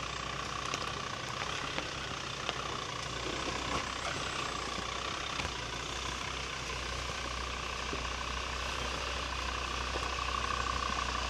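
Jeep Grand Cherokee engine running low and steady as the 4x4 crawls slowly along a rocky track, with a few faint clicks and a thin steady whine that grows a little stronger near the end.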